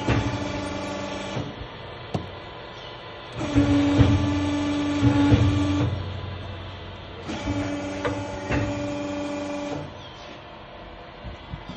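Şahinler Makine hydraulic press forming clay hookah bowls, its drive running in spells with a steady whining tone. The tone comes on three times, about two and a half seconds each, with a lower hum and a few sharp clanks of the press in between.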